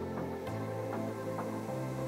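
Background music with a steady, even pulse over sustained bass notes; the bass note changes about half a second in and again near the end.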